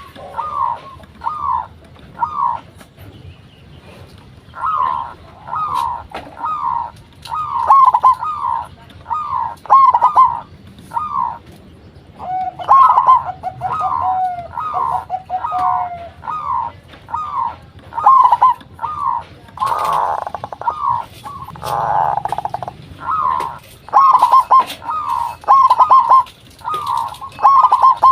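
Zebra doves (perkutut) cooing in quick phrases of short, repeated notes. A second, lower-pitched bird joins with a longer run of notes about halfway through.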